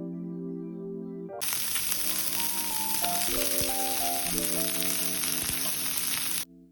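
Food sizzling in a hot pan, starting about a second and a half in and cutting off suddenly near the end, over soft background piano music.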